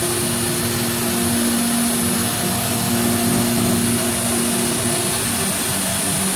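Techno HDS CNC router milling a groove in white plastic sheet: the spindle and cutter run steadily under the dust collector's rush of air, with a steady hum and a high whine over the noise.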